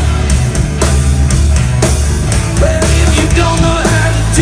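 Live rock band playing a passage without vocals: electric guitar over a heavy bass line, with drum-kit hits landing about once a second.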